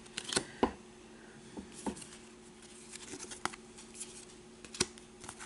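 Trading cards being handled: cards slid and flipped over one another in the hands and set against the table, giving scattered soft clicks and taps over a faint steady hum.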